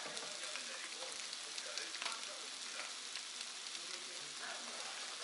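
Gopchang sizzling in a hot pan: a low, steady crackling hiss with scattered small pops.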